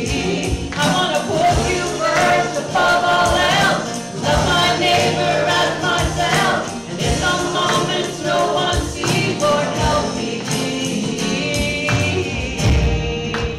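Gospel-style worship music: a group of voices singing over band accompaniment with a steady percussion beat.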